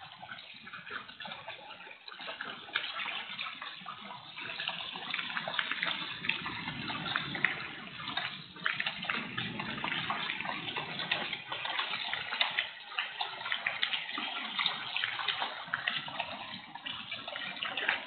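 Hail and heavy rain pelting down: a dense watery hiss full of sharp ticks from hailstones striking, getting louder a couple of seconds in. It is heard thin through a security camera's microphone.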